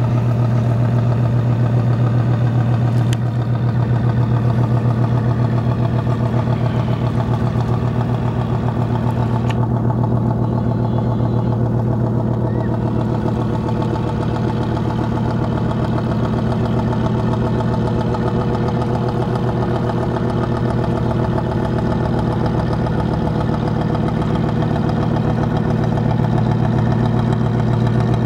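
Diesel engine of a sand-carrying bulkhead boat running steadily, a low hum with a fast, even pulsing beat as the boat cruises past.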